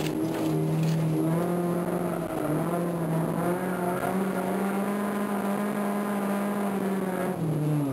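Stock Honda B16A four-cylinder engine of a 1992 Civic EG6, heard from inside the cabin, revving hard with its pitch rising and falling as the car accelerates and slows through the course. It climbs steadily for a few seconds, then drops off sharply near the end.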